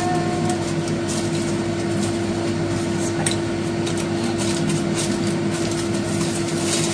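Aluminium foil crinkling as hands press it over a bowl, then a glass lid set down on the foil-covered bowl, with light clicks. A steady background hum with one constant tone runs underneath.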